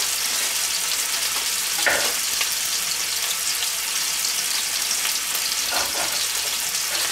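Veal loin steak frying in oil in a nonstick pan: a steady sizzling hiss.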